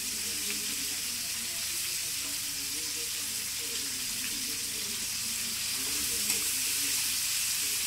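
A steady hiss, with faint voices murmuring underneath.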